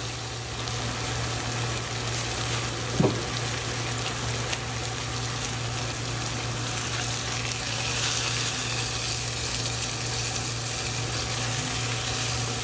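Pollock fillets sizzling steadily in butter and grapeseed oil in a skillet as the second side sears. A low steady hum sits underneath, and there is one brief sharper sound about three seconds in.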